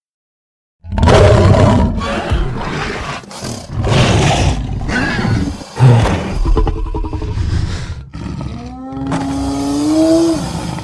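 Dinosaur roar sound effects: after a second of silence, a string of different loud, rough roars and growls, ending with a long pitched bellow that rises slightly in pitch.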